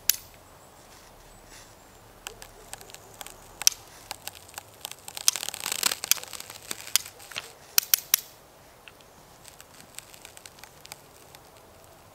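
Ratchet of a hand-cranked come-along clicking at irregular intervals while it tightens a rope pulling on a tent stake in frozen ground. There is a short crunching stretch about five to six seconds in, and a quick run of clicks a couple of seconds later.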